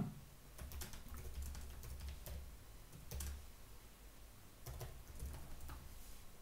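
Computer keyboard being typed on, faint: irregular key clicks coming in short runs.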